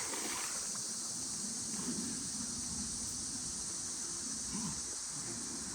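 Steady high-pitched chorus of crickets or other night insects, with faint low voices murmuring underneath.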